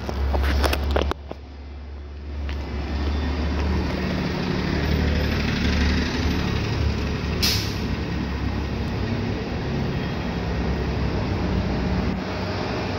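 Steady wind rush and rumble on the microphone of a bicycle being ridden along a paved sidewalk. A few sharp clicks in the first second and one short hiss about seven and a half seconds in.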